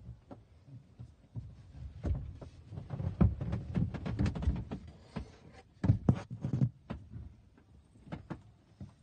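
Irregular bumps, knocks and rubbing: handling noise as the phone moves against cushions and fabric. It is loudest from about two to five seconds in and again around six seconds.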